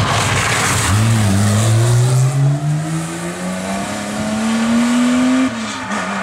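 Porsche 911's air-cooled flat-six engine on a rally stage, with a burst of tyre and gravel noise in the first second as the car takes a loose, dusty corner. The engine then pulls hard with a steadily rising note and changes up a gear near the end.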